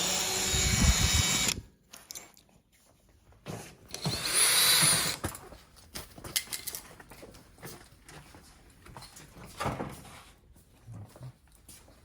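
Power screwdriver backing out the screws of a display's power board bracket: two short runs of its motor, the first at the very start and the second about four seconds in, with its whine rising and falling, followed by small clicks and knocks of the screws and metal bracket being handled.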